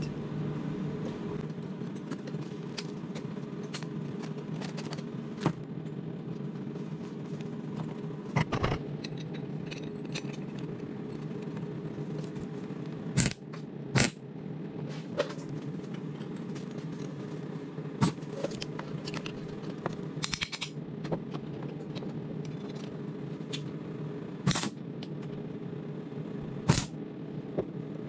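MIG welding: the wire-feed welder's arc runs as a steady buzz, with sharp pops scattered through it.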